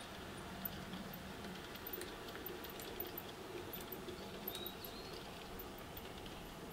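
Faint rolling and light clicking of G-scale model railway coaches running over the track into a tunnel, the low running hum fading in the first couple of seconds. There is a brief high chirp about halfway through.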